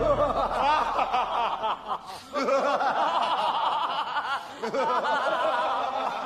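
Laughter from several people at once, many voices overlapping, dipping briefly about two seconds in before picking up again.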